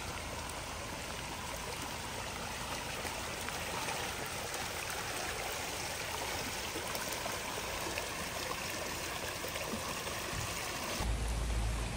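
Muddy flash-flood runoff rushing steadily down a street, swirling around a parked car's front wheels and loose rocks. About a second before the end, a low rumble comes in under the water sound.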